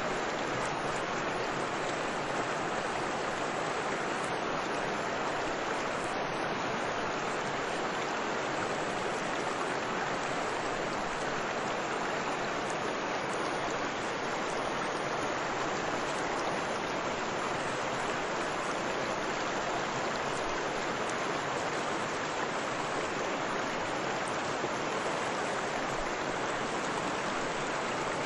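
Waterfall water rushing, a steady, unbroken rush.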